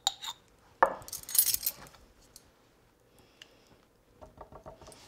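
Metal measuring spoon clinking against a jar and scraping as Dijon mustard is scooped out: a sharp clink about a second in, then about a second of scraping, with a few light utensil clicks near the end.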